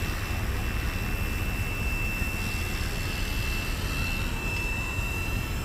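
FW450 electric RC helicopter flying, its motor and rotor giving a steady high whine. A steady low rumble of wind on the microphone runs underneath.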